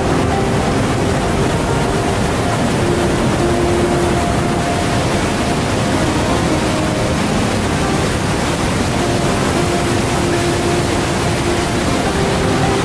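Niagara's American and Bridal Veil Falls rushing steadily: a dense, even noise of falling water pouring over the brink and crashing onto the rocks below.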